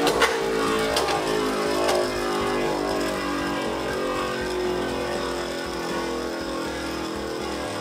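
Beyblade Burst top on the jagged Destroy (Ds) attack driver, launched flat, spinning and travelling around the plastic stadium floor: a steady whir with a hum that slowly falls in pitch, and a few knocks in the first two seconds.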